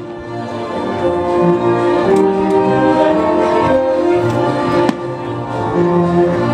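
Orchestral music, a symphony orchestra playing held chords with bowed strings. There is a single sharp click about five seconds in.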